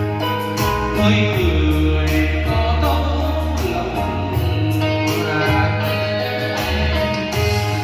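Karaoke music: a backing track with bass, guitar and drums, with a man singing along into a microphone over the room's speakers.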